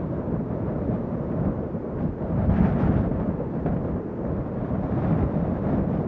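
Strong wind blowing in gusts, a deep rumbling rush that swells about two and a half seconds in and then eases.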